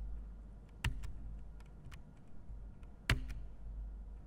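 A few sharp clicks and knocks over a low steady hum, the two loudest about one second and three seconds in, with fainter ticks between them.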